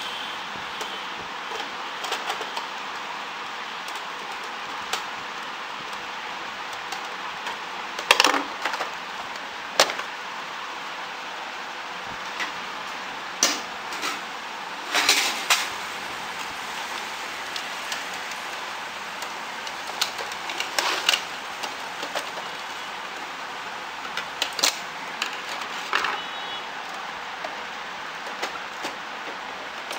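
Scattered clicks, taps and knocks of the plastic and metal parts of an Epson ink-tank printer being handled and fitted back together, a few seconds apart, over a steady hiss.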